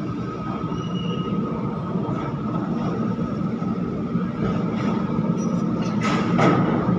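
Heavy port cargo-handling machinery, container cranes and handling equipment, running: a steady low engine hum with a thin steady whine above it, and a brief louder clatter about six seconds in.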